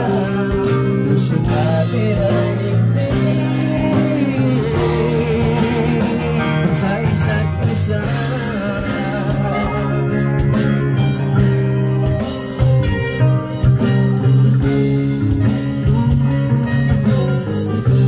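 Live band playing an instrumental passage between sung lines: electric bass guitar, keyboard and electronic drum kit. The drum hits come through more strongly in the second half.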